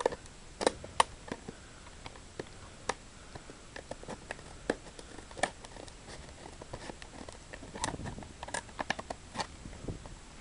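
Scissors cutting along the sides of a rigid clear plastic blister pack, with irregular sharp clicks and snaps of the plastic as it is cut and handled.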